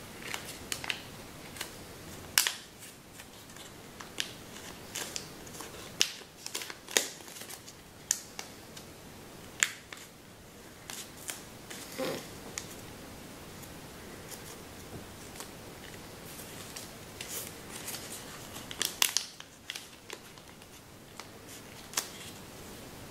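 Kami origami paper crackling and snapping as hands pinch and shape the folds of a paper dog, with irregular crisp clicks spread through, some sharp and loud.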